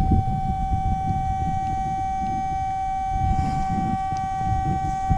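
A metal detector sounding one steady, unbroken tone, the signal that it is sitting over a metal target. A low, uneven rumble runs underneath.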